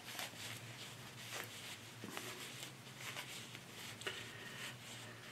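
Faint rustling and soft scrapes of fabric being worked in the hands as a sewn apron tie is turned right side out, over a low steady hum.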